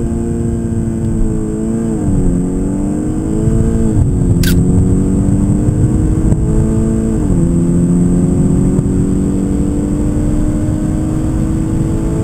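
VW Golf R Cabriolet's 2.0-litre turbocharged four-cylinder TSI engine pulling hard at full-throttle kickdown, its note climbing and dropping back at upshifts about two and seven seconds in. A brief high rising chirp about four and a half seconds in.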